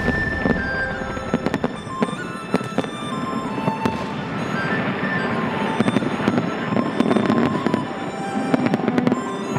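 Fireworks crackling and popping in a rapid, irregular run of sharp cracks, over music with a melody.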